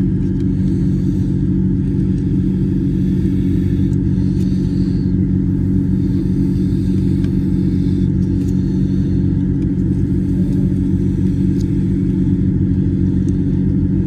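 Steady low hum of an idling engine or motor, even and unchanging, with a few faint clicks now and then.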